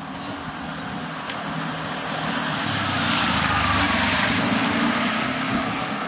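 A car passing on the street, its sound swelling to a peak about halfway through and then fading away.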